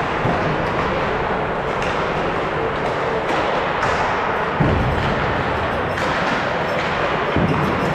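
Ice hockey rink during a game: a steady din of play on the ice, with a dull thud a little past halfway and another near the end, typical of the puck or players hitting the boards, and a few sharp clicks.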